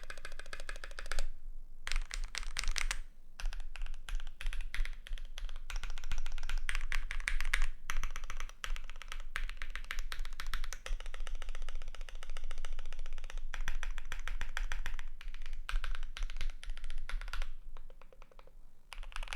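Fast typing on a GMMK Pro mechanical keyboard with lubed KTT Strawberry linear switches, lubed TX stabilisers and an aluminium plate: a dense run of keystrokes with short pauses about a second in and near three seconds in. The typing thins out near the end.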